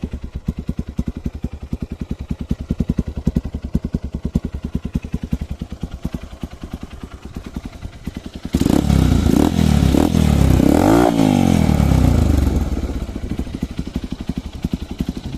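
Modified Hero Impulse single-cylinder motorcycle engine with an aftermarket silencer, idling with a rapid, even thump. A little over halfway through it is revved for a few seconds, rising in pitch and falling back, then it settles to idle again.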